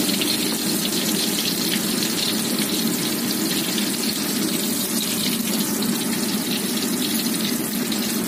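Hot oil sizzling steadily in a wok as small bits of food fry in it.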